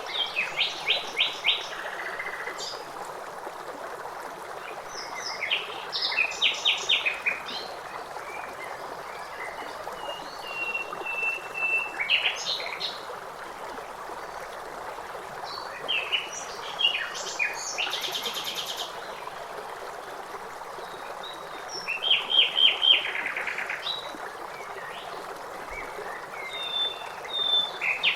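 Songbirds singing short, rapid trilled phrases every few seconds, with a brief high buzzy phrase and a short whistle among them, over the steady rush of running water.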